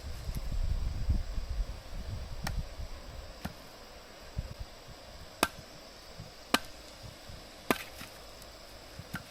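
Six sharp chopping strikes, roughly one a second, after a couple of seconds of low rumbling.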